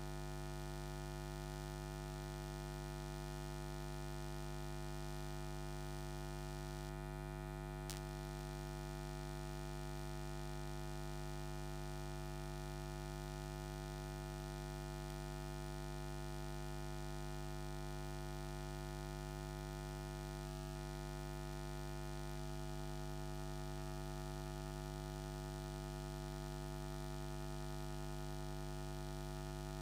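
Steady electrical mains hum in the sound system, a low hum with many overtones above it. One brief click about eight seconds in.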